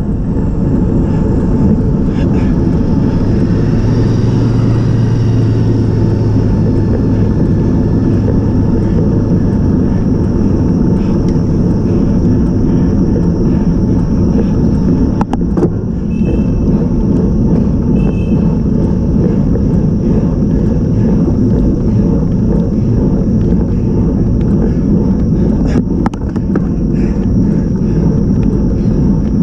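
Steady wind and road rumble on a handlebar-mounted action camera's microphone as a road bike climbs. A low steady hum runs for several seconds near the start, and there is one sharp click about halfway through.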